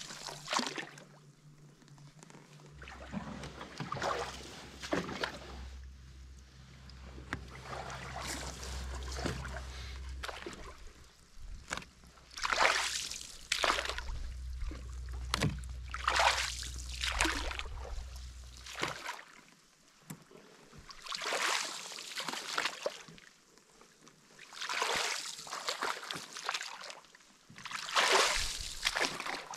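Water sloshing and splashing as a canoe is paddled with a makeshift tree-branch paddle, a swish with each stroke every two to three seconds. The strokes get louder in the second half.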